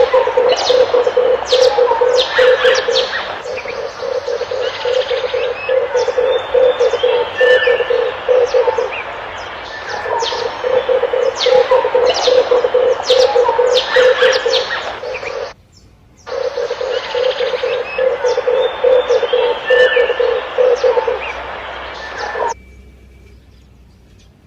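Red collared dove cooing in long runs of rapid, low, pulsed coos, with smaller birds chirping over it. The calls break off abruptly for under a second about fifteen seconds in, then stop a couple of seconds before the end.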